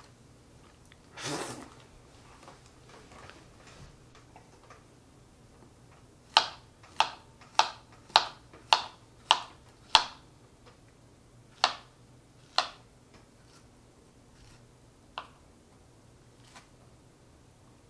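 A short rustle about a second in, then a run of seven sharp clicking taps a little under two a second, followed by two more and a faint last one.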